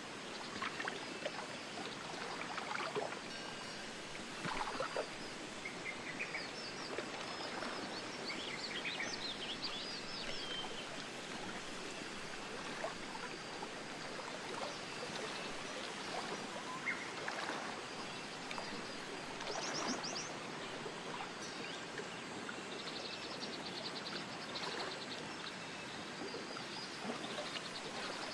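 A steady rushing outdoor noise, like wind in trees or running water, with small birds chirping over it. The birds give a run of quick notes from about a quarter of the way in, a fast trill near the middle, and a rapid twitter near the end.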